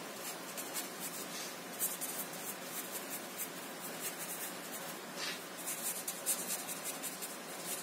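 A pen scratching across paper as a line of words is written by hand, in short runs of strokes with brief pauses between them.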